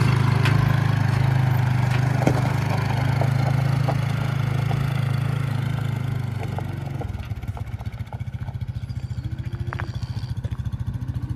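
An engine running steadily, then dropping about seven seconds in to a slower idle with a fast, even pulsing beat.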